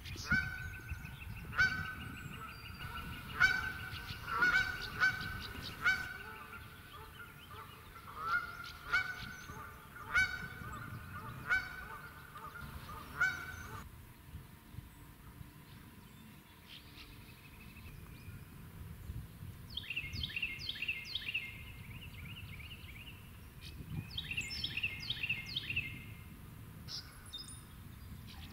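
Geese honking: short honks about once a second, then after a quieter stretch about halfway, two quicker runs of honks near the end.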